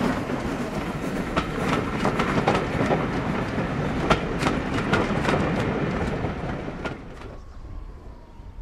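Passenger coaches rolling past, their wheels clicking regularly over the rail joints. The sound drops away abruptly about seven seconds in.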